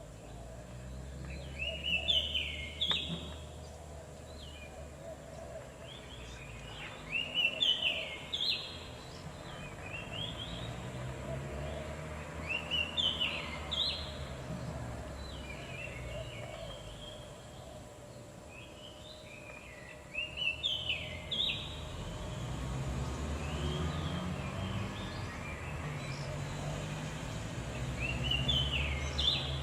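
A small songbird singing short bursts of quick, high chirping notes, repeated about every five or six seconds over a steady low rumble.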